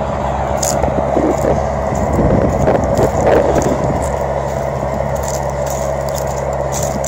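A John Deere 6420 tractor's four-cylinder diesel engine running steadily under load while pulling a plow, a constant even hum, with scattered light clicks and rattles over it.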